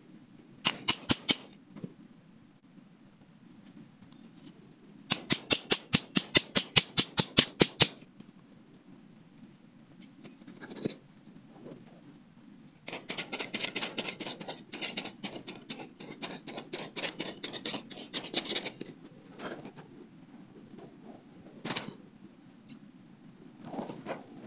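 A large knife blade jabbing and scraping into dry, hard soil to dig out a small hole. A short burst of strokes comes first, then a regular run of quick stabs at about five a second, then several seconds of fast scraping. A few single scrapes of dirt follow near the end.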